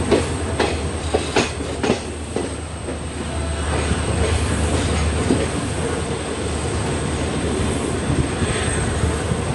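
Passenger train coach wheels running slowly over points and rail joints: a quick run of sharp clacks in the first couple of seconds, then a steady low rumble as the train rolls on around the curve.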